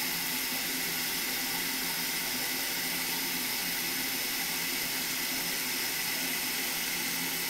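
Kitchen faucet running steadily into a stainless steel sink, the stream splashing over a catfish being rinsed under it.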